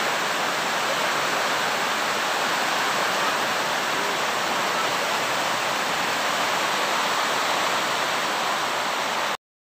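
Heavy rain pouring down in a steady, dense hiss, cutting off suddenly near the end.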